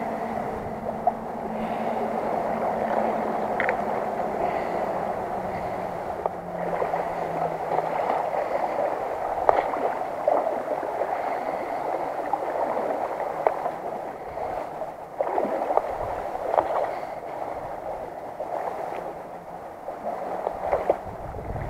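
River water swirling and lapping around a wading angler's legs, with small splashes now and then as he shifts his stance.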